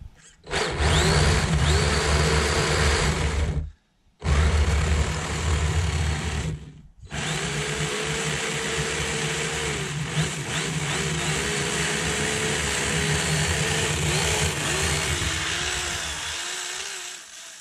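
RC snowmobile's 2400Kv brushless electric motor, running on a 3S battery, whining under throttle as the track churns through snow. The whine rises as it speeds up at the start, then wavers with the throttle, and cuts out briefly about four seconds in and again about seven seconds in.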